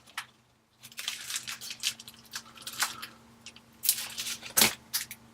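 Pliers clamping and bending the dented edge of an iPhone 8's aluminium housing back into shape: an irregular run of creaks, scrapes and crinkles, with a sharp click about four and a half seconds in.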